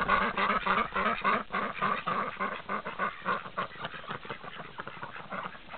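A flock of Rouen ducks quacking in a rapid, overlapping chatter, excited at being let out. It is busiest in the first couple of seconds and thins out toward the end.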